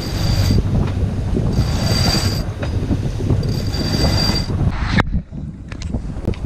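A sailing yacht's line being hauled through its rigging, squealing in three pulls about two seconds apart over steady wind noise on the microphone. A sharp knock comes about five seconds in, and after it the sound is quieter.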